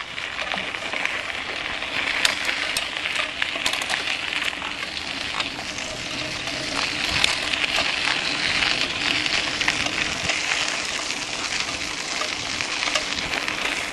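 Mountain bike tyres rolling over a loose gravel and dirt road: a steady crunching hiss with many small clicks and rattles from grit under the wheels and the bike shaking over the surface.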